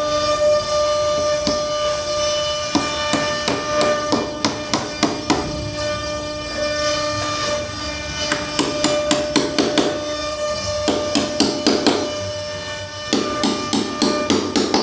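Small ball-peen hammer tapping a steel nail punch against a wooden panel frame, setting nails into the wood. Single taps come a second or so apart at first, then quick runs of rapid taps in the second half. A steady held tone of background music runs underneath.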